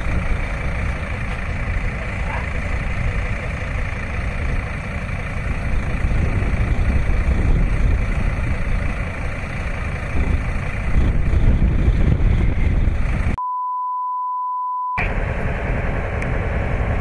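Steady loud rumble and rush of outdoor noise over moving floodwater. About thirteen seconds in, all sound cuts to a single pure steady test tone for about a second and a half, then the rumble returns.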